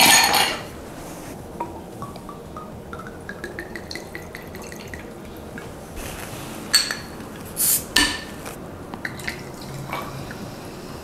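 Ice cubes clinking in a glass at the start, then gin poured over the ice with a pitch that rises as the glass fills. About seven seconds in come sharp clicks and a short hiss as the cap of a glass tonic water bottle is twisted off, and near the end tonic water is poured over the ice.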